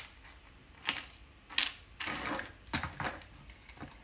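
Irregular small clicks and taps of 3D-printed plastic track links being handled and snapped onto a small robot's wheel.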